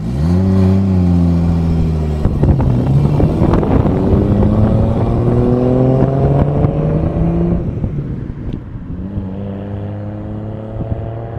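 Nissan Skyline R32 pulling away hard and accelerating through the gears. The engine note rises, drops at a gear change about two seconds in, and climbs in a long rising pull. It then rises again on the next gear, fainter as the car moves off.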